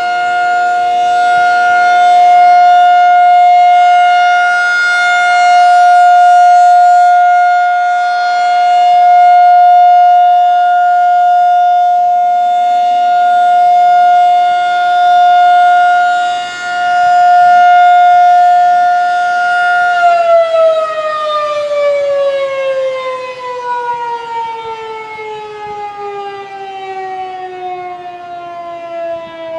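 Federal Signal 2001-SRN rotating tornado siren sounding its steady single tone, the level swelling and fading every few seconds as the turning horn sweeps past. About twenty seconds in it is switched off and winds down, the pitch falling slowly and the sound getting quieter.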